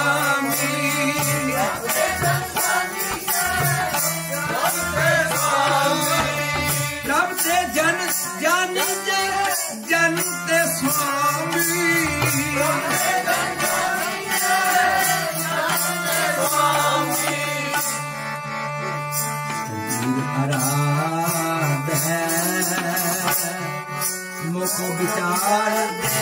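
Sikh kirtan: a man singing a Gurbani shabad over a harmonium's held chords, with a steady percussion beat underneath.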